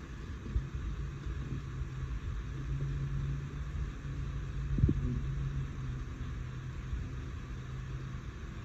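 Low steady hum and rumble of room tone, with one soft knock about halfway through.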